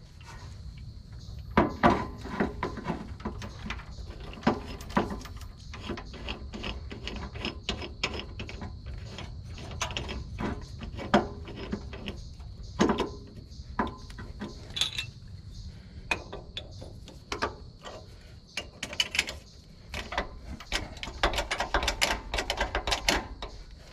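Hand tools working bolts on an engine's timing cover and motor mount: scattered metal clinks and knocks, with a fast run of ratchet clicks near the end.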